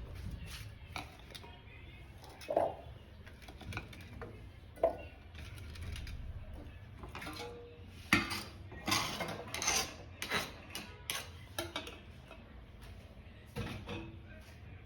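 Kitchen utensils being handled: scattered clinks and knocks of metal dishes and spoons, thickest about eight to ten seconds in, over a faint steady low hum.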